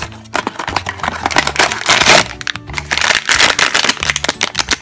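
A cardboard blind box being opened and its shiny plastic inner bag crinkling and crackling in the hands. The crinkling comes in dense bursts, loudest about two seconds in and again a little past three seconds.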